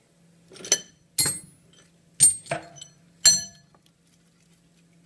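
A machined UHMW plastic sprocket being worked loose from its stock and fixture by hand, giving five sharp, ringing clinks and knocks in the first three and a half seconds. A faint steady low hum runs underneath.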